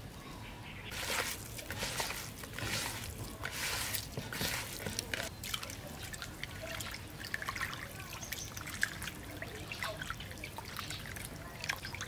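Hands rubbing and squeezing raw chicken gizzards in a plastic basin of water: irregular splashing, with water trickling and dripping off the pieces. It starts about a second in.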